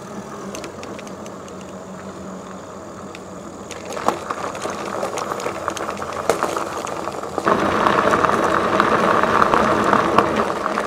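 Electric bike riding along, its motor giving a steady whine, then its tyres crunching and rattling over gravel. The gravel noise starts about four seconds in and gets louder near eight seconds.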